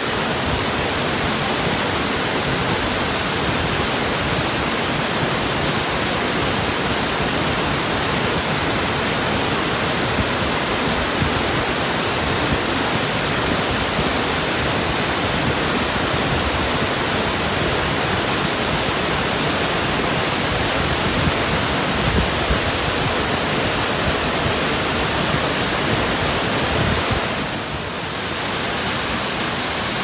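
Vinnufossen waterfall's white water rushing down rocky cascades: a loud, steady rush of falling water with no break, dipping briefly near the end.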